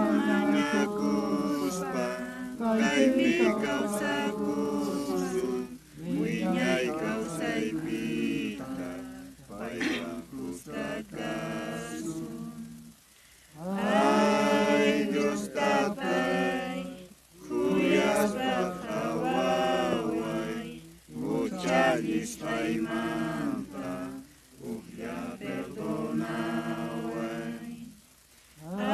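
Voices singing a religious hymn unaccompanied, in sung phrases of a few seconds each, broken by short pauses.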